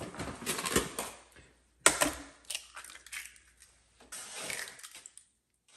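Eggs being cracked into a food processor bowl: a sharp shell crack about two seconds in, with lighter clicks and handling noise around it.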